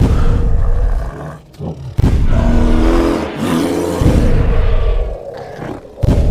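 Dinosaur roar sound effects: a series of loud, deep, rough roars, a new one starting abruptly about every two seconds, one of them with a higher wavering cry in its middle.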